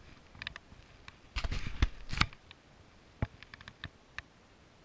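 Dry fallen leaves and twigs crunching and snapping as something moves through the leaf litter: a dense burst of crackling about a second and a half in, then a few scattered sharp snaps.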